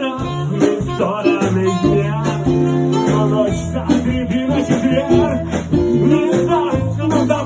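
Live rock band playing, guitar prominent over bass and a steady drum beat.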